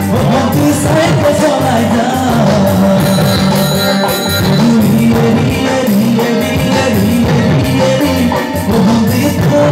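Male singer singing a dance song live into a microphone over an amplified band with guitar.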